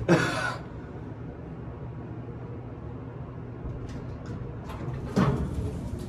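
Elevator car running down, a low steady hum in the cab, with a sharp breathy exhale at the start. Faint clicks and a short rush of sound near the end as the elevator doors slide open.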